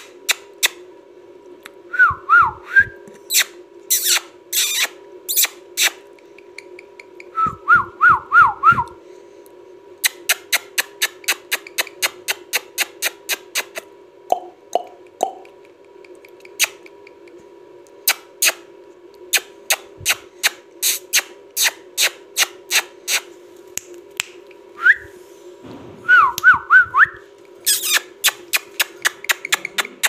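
Runs of sharp clicks, about three to four a second, with four short wavering whistles scattered among them over a steady low hum.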